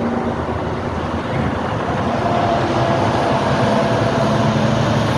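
Steady highway vehicle noise: a continuous engine and road rumble with a low hum underneath.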